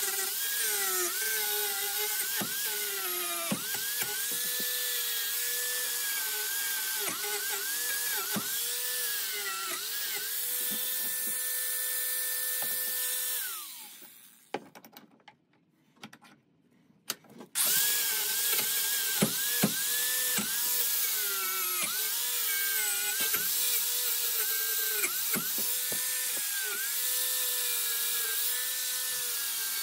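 DeWalt angle grinder grinding a copper block held in a vise: the motor whine dips again and again as the wheel bites, runs free and steady for a few seconds, then winds down and stops a little before halfway. After a few seconds of near quiet with a few light knocks, the grinder starts up again and goes back to grinding with the same dipping whine.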